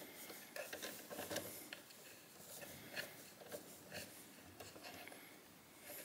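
Faint, irregular small clicks and light scraping of an Allen key turning in a thumb turn's grub screw, tightening the thumb turn onto a smart euro cylinder lock.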